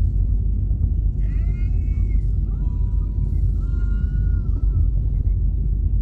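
Steady low rumble of road and engine noise inside a moving car's cabin. Two faint drawn-out tones sound over it in the middle, the second longer.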